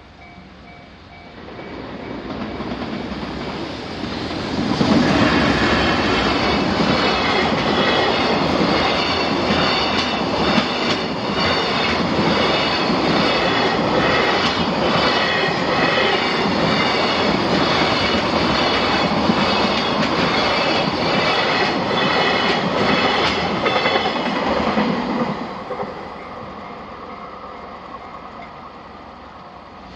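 A train passing over a level crossing on the JR Tōhoku Main Line. It approaches about a second in, runs loud for about twenty seconds with a rapid clickety-clack of wheels over the rail joints, then fades away. At the start, the crossing's electronic warning bell dings in a steady repeating pattern.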